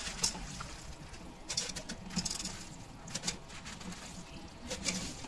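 Chopped taro stems dropped by the handful into an aluminium pressure cooker: irregular soft rustles and light knocks, about five in a row.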